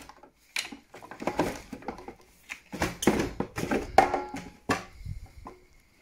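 Irregular plastic knocks, clicks and scraping as the condensate sump of an Alpha Intec 2 boiler is worked loose and pulled down out of the casing. The loudest knocks come about three to four seconds in.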